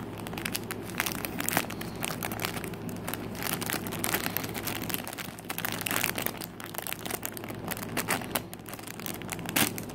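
Clear plastic zip-top bag crinkling and crackling as hands work a squishy toy out of it, with many small irregular crackles over a steady low hum.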